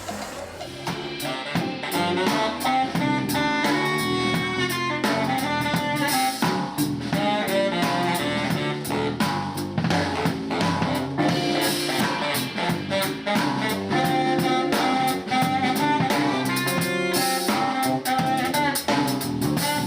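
Latin music with horns, saxophone and drums, a salsa or jazz-tinged band playing at a steady beat.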